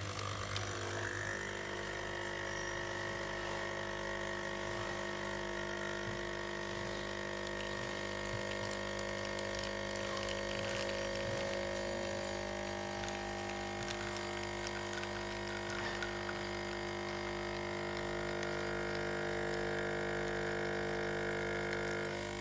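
De'Longhi Scultura espresso machine's vibratory pump running with a steady electric hum made of many fixed tones.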